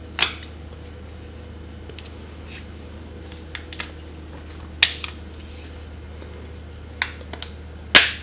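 Hard plastic parts of a Samsung ice maker clicking and snapping as they are handled and fitted together: a string of short, sharp clicks. The loudest come about a quarter second in, near five seconds and near the end.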